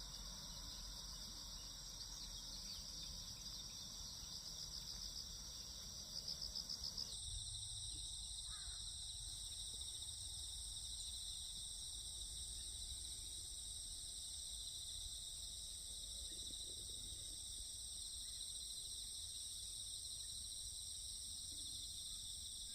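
Steady, faint, high-pitched insect trilling, cricket-like. About seven seconds in it changes abruptly to a higher trill.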